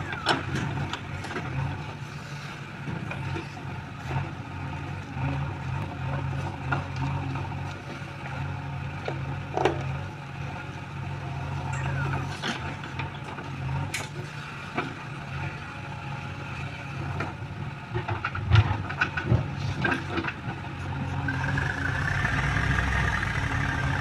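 JCB 3DX backhoe loader's diesel engine running steadily as the machine works, with scattered clanks and knocks from the bucket and soil. A higher-pitched steady whine comes in near the end as the machine digs with its backhoe arm.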